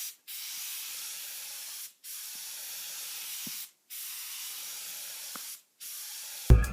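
Paint spray gun hissing steadily as it lays down a wet coat of paint, in four passes with the trigger released briefly between them. Loud drum-backed music cuts in at the very end.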